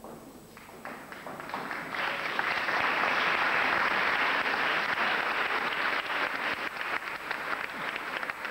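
Audience applauding: the clapping builds up over the first two seconds, holds at its loudest for a few seconds, then slowly thins.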